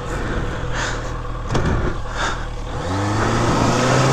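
Honda motorcycle engine running, then revving up about three seconds in, with a single knock about halfway through.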